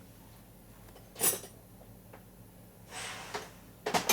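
Metal tools being handled on a workbench: a sharp clank about a second in, a brief scrape, then a couple more clanks near the end.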